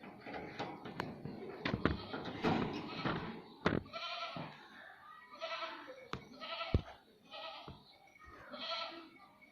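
Ringneck parrots calling: a run of short, harsh, pitched calls about once a second through the second half, after a first half of scattered clicks and knocks.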